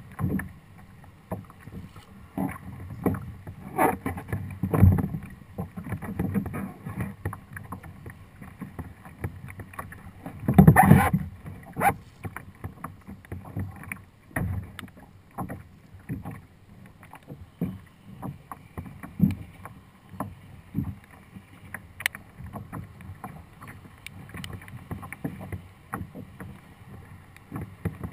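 Choppy water slapping against a plastic Hobie Outback kayak's hull, with irregular knocks and thumps from movement in the boat. One louder burst comes about eleven seconds in.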